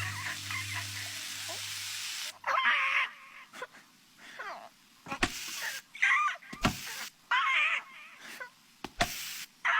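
Short, wavering, high-pitched calls from a cartoon animal, about five of them, with a few sharp knocks between; a sustained tone fades out at the start.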